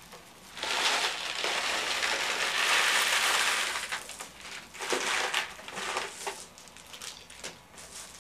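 Clear cellophane wrapping crinkling and crumpling as it is handled: a long stretch of rustling for the first few seconds, then shorter separate crackles around five to six seconds in.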